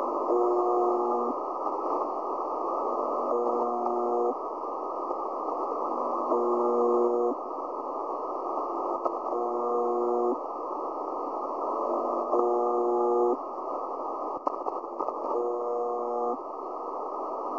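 Shortwave radio reception on 4675 kHz in lower sideband: a low, pitched buzz about a second long repeating every three seconds, six times, over steady static and hiss. It is a buzzer-style signal like that of the Russian station UVB-76, 'The Buzzer', taken for a possible second such station.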